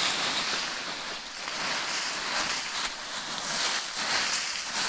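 Dry fallen leaves rustling and crackling as they are gathered and packed into a load: an uneven hiss that swells and fades.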